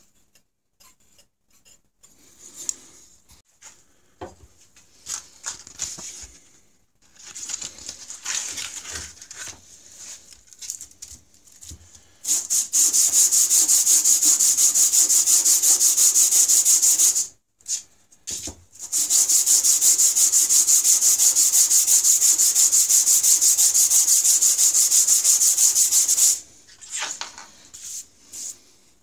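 Combination waterstone rubbed back and forth by hand on a sheet of abrasive paper: a fast, rhythmic gritty scraping in two long, loud runs with a short break between them, after softer scattered scrapes at the start. The stone is being lapped flat because it has worn hollow in the middle from sharpening.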